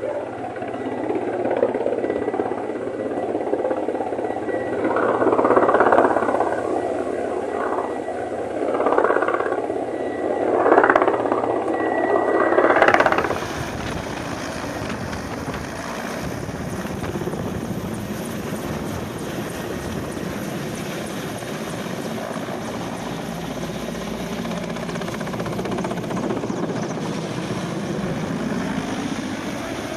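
Rushing noise that swells and falls several times, then an abrupt change about 13 seconds in to the steady, dense rotor and turbine noise of a Mil Mi-17 military helicopter flying low and banking close by as it comes down.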